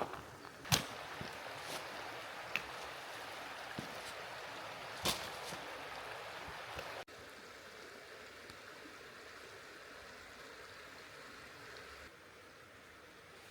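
Mountain stream flowing steadily, with a few sharp clicks or knocks over the first five seconds. The water sound drops abruptly to a quieter level about seven seconds in.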